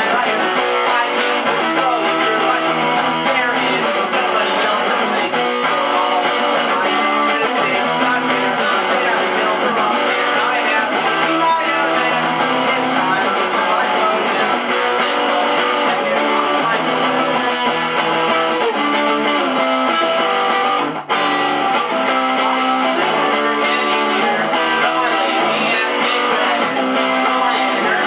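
Electric guitar strumming chords through an instrumental stretch of a pop punk song, with a momentary break about three quarters of the way through.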